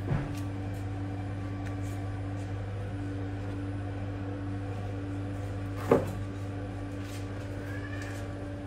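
Two sharp knocks over a steady low hum, one at the start and a louder one about six seconds in, with a short faint chirp near the end.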